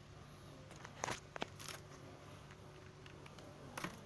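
Faint handling noise: a few light clicks and knocks about a second in and again near the end, over a low steady hum.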